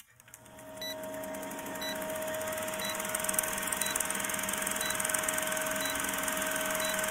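Logo intro sound effect: a steady hum and hiss with a soft high tick about once a second, fading in over the first second.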